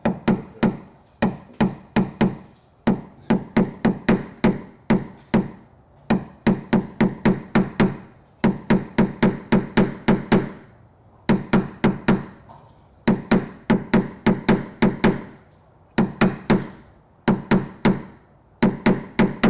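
Paintless dent repair tap-down tool struck with a hammer against a car body panel: quick, sharp taps, about four a second, in runs of several with short pauses, knocking down the raised metal left around a pushed-out crease.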